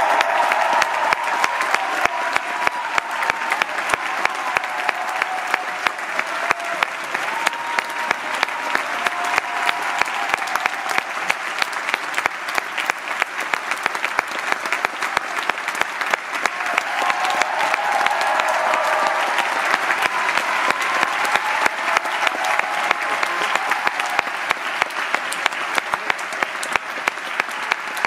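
Theatre audience applauding a ballet curtain call, a steady sustained ovation with sharper claps from close by. Cheers rise above it now and then, near the start and again about two-thirds of the way through.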